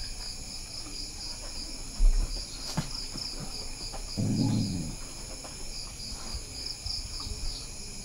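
Crickets chirping in a steady, pulsing high chorus. A low thump comes about two seconds in, and a short low-pitched sound about four seconds in.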